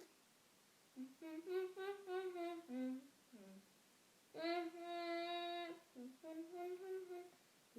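A voice humming a string of short wordless notes, with one long held note about halfway through.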